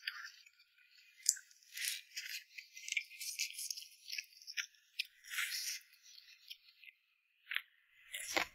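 Close-up chewing of a crisp-crusted pan-fried chive flatbread: irregular crackly crunches and mouth clicks, with a fresh bite near the end.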